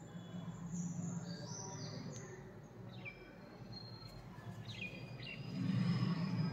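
Small birds chirping in the background: a scatter of short high chirps and falling whistles. Under them runs a low hum that grows louder about five and a half seconds in.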